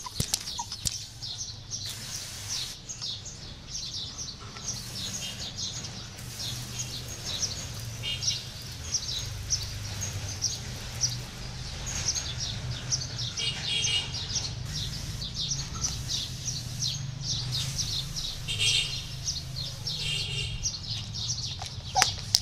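Small birds chirping over and over, above a low steady hum. Several short hissing bursts come from a hand-pump pressure sprayer misting the grass.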